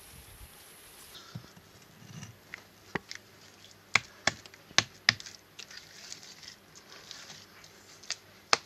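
Hands handling wet mud and setting a stone block onto the wall of a clay oven: quiet rubbing and patting, with a run of sharp clicks and taps as the block is knocked into place, bunched around the middle and twice more near the end.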